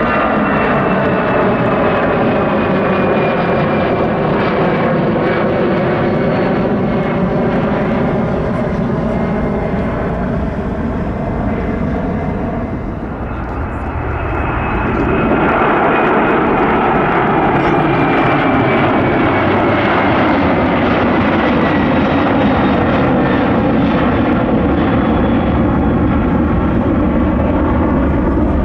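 Airbus A330's twin jet engines at takeoff thrust as the airliner rolls, lifts off and climbs away. Several whining tones fall slowly in pitch as it passes, the sound dips briefly about halfway through, then comes back as a louder, steady jet noise.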